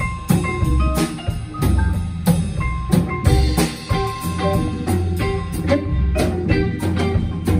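Live blues band jamming: vibraphone notes struck with mallets, harmonica, upright bass and drum kit with hand percussion, playing a steady groove.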